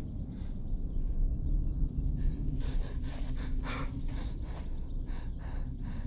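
A person breathing hard in quick gasping breaths, over a steady low rumble.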